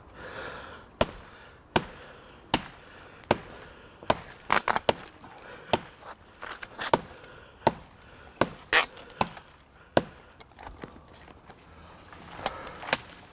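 Chopping at thin sapling stems: a dozen or so sharp woody strikes at roughly one a second, with quick flurries of blows in two places and a pause before a last strike near the end.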